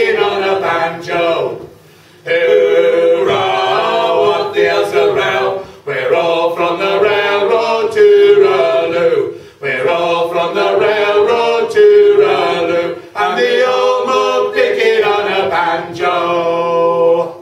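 Three voices, two men and a woman, singing a sea shanty a cappella in harmony, in phrases with short breaks between. The song ends just before the end.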